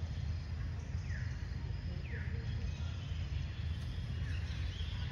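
Outdoor ambience: a steady low rumble with a faint insect hum, and a few short, falling bird chirps about a second apart.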